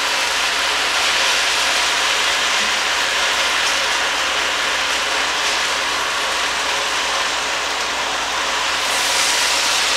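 Thin-sliced beef sizzling steadily in a hot Dutch oven as it is stirred and turned with a spatula, browning before the sauce goes in.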